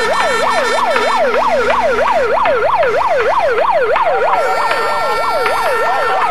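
Electronic siren rapidly sweeping up and down in pitch, about three to four sweeps a second, over steady held tones. A second siren overlaps it out of step in the latter part.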